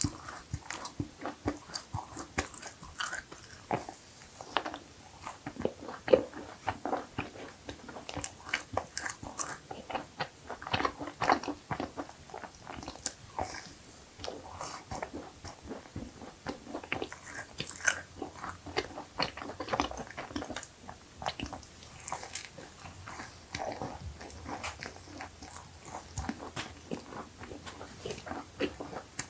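Close-miked biting and chewing of a s'more cookie with marshmallow: irregular crunches and crackles, with soft chewing between them.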